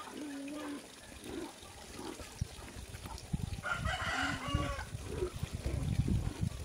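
A rooster crows once, starting about three and a half seconds in and lasting a little over a second. Before that, near the start, there is a drawn-out chicken call. Low, uneven splashing and sloshing of feet wading through a shallow pond fills the second half.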